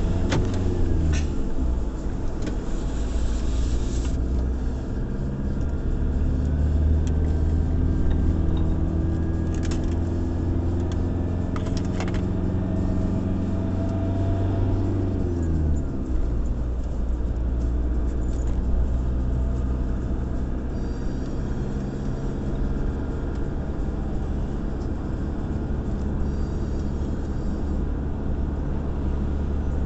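Car driving on a wet road, heard from inside the cabin: a steady low rumble of road and tyre noise under an engine drone. The drone drops in pitch about halfway through.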